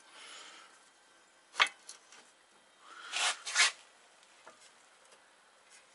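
A sharp click and a couple of lighter ticks, then two short scrapes as the steel control arm and the socket used as a pressing driver are shifted by hand on the shop press bed.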